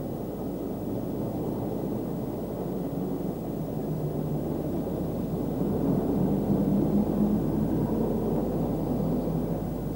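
Low, muffled engine rumble with a faint wavering drone, growing a little louder about six seconds in.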